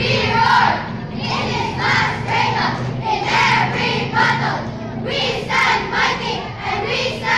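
A group of children chanting a cheer together in short, loud phrases.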